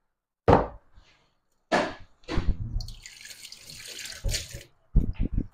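Hard plastic knocks and clatter as a personal blender's cup is handled and set down on a kitchen counter, with a high hiss lasting about a second in the middle and a quick run of small knocks near the end.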